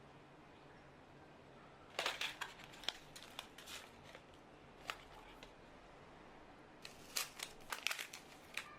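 Packaging and small parts being handled: crinkling and crackling with sharp little clicks, in two bursts, about two seconds in and again about seven seconds in.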